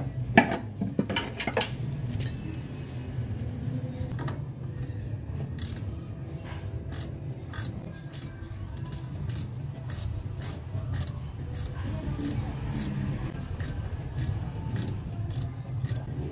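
Wrench working the nuts of a rear shock absorber's lower mount: an irregular string of light metal clicks and clinks, a couple a second, with a few louder ones in the first two seconds, over a steady low hum.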